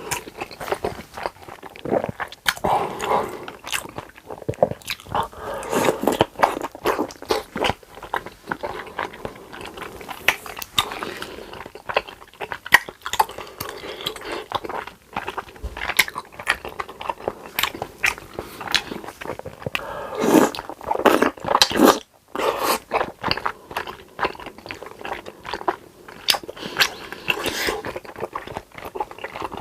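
Close-miked eating: a person biting into and chewing crispy food, with repeated crunches and crackles and wetter chewing between them.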